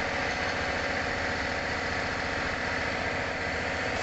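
A steady mechanical hum, running evenly throughout with no distinct knocks or scrapes standing out.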